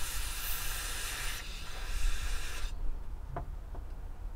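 Steady hiss of a pressurised jet blown at a chainsaw carburettor during cleaning. It cuts off abruptly about two-thirds of the way in, followed by two small clicks.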